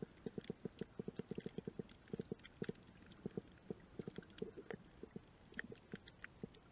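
Muffled underwater clicking and popping from a shallow coral reef pool: many short, irregular clicks, several a second and often in quick clusters, with fainter scattered ticks above them.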